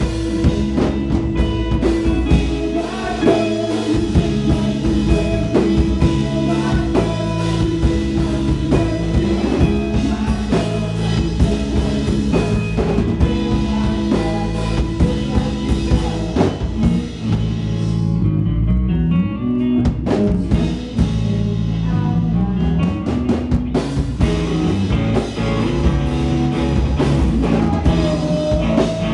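Live rock band playing: electric guitar over a full drum kit, with the cymbals and high end dropping away briefly about eighteen seconds in before the full band comes back.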